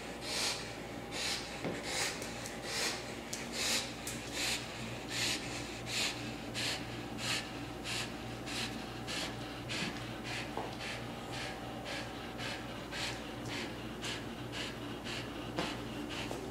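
A small dog snorting in rhythmic breaths, about one and a half a second, growing weaker toward the end, over a faint steady hum.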